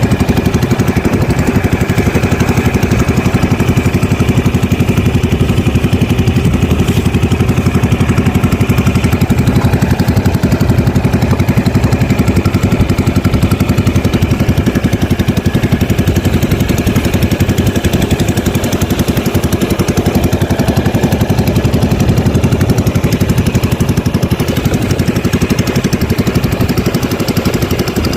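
Small engine running steadily at one constant speed, with a fast, even firing pulse.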